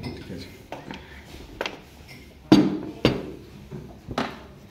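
Clinks and knocks of metal serving spoons and ceramic dishes on a dining table, about five sharp strikes, the loudest a little past halfway.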